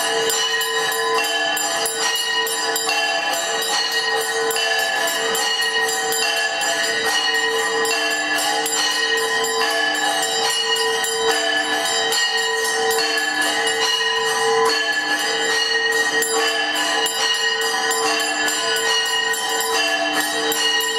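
Hindu temple bells rung continuously for an aarti, struck in rapid, even strokes that blend into one steady ringing of many overlapping tones.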